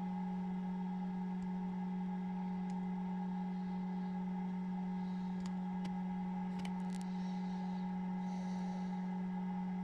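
Steady low hum of an egg incubator's fan running, with a few faint clicks around the middle.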